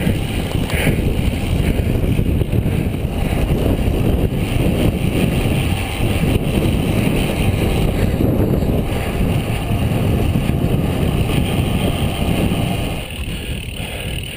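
Wind rushing over the microphone of a racing bicycle at speed, a steady loud low buffeting that eases off near the end.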